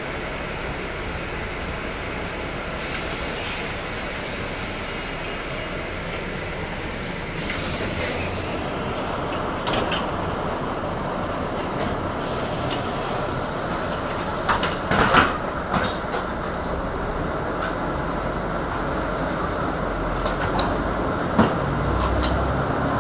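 Steady running noise of a moving city bus, heard from inside. High hissing comes and goes three times, and a burst of clattering knocks is heard about two-thirds of the way through.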